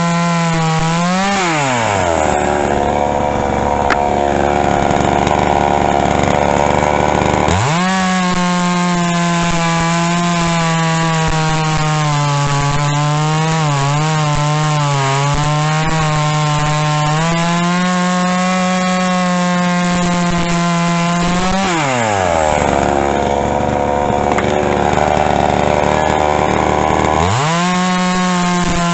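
Pinkway 63cc two-stroke chainsaw run at full throttle, apparently cutting wood. It drops back to idle twice for about five seconds each, revving up again each time, and its pitch wavers and sags for a few seconds midway through the long high-revving stretch.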